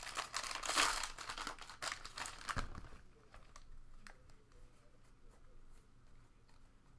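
Foil wrapper of a baseball card pack crinkling as it is torn open and pulled off, with a low bump at the end of it. Then a quieter stretch of faint clicks as the stack of cards is handled.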